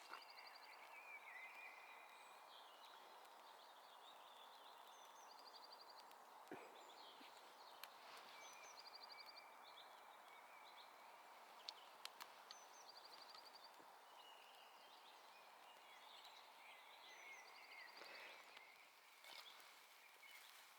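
Faint birdsong over a quiet outdoor hush: a short trill repeats every four or five seconds, with scattered chirps between, and a few faint clicks.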